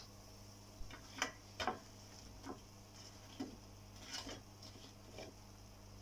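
A handful of scattered light clicks and taps from a wire mesh skimmer knocking against the kadai and the metal plate as fried onion bhajis are lifted out and set down, over a faint steady hiss.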